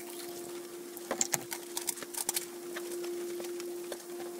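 Sharp plastic clicks and taps of a fluid jug and cap being handled just after topping off an engine-bay reservoir, clustered in the first half and then stopping, over a steady low hum.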